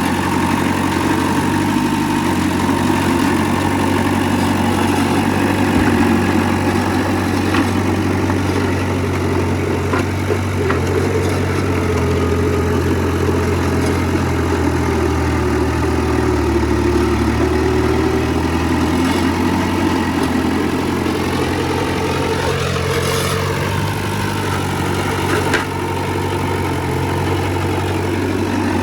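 Heavy diesel engine of earthmoving machinery running steadily, with a few short knocks and, late on, a brief whine that rises and falls in pitch.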